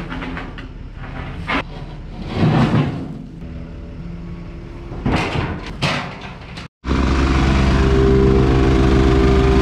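Engine idling in the background with several loud clunks and scrapes as a reversible plate compactor is moved down a trailer's steel ramp. About seven seconds in, the plate compactor's engine starts running steadily and loudly as it packs gravel backfill.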